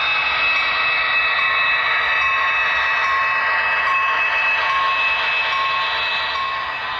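Model diesel locomotive and a freight hopper car running past close by on layout track: a steady running rush with high whining tones, and a short tone repeating a little faster than once a second.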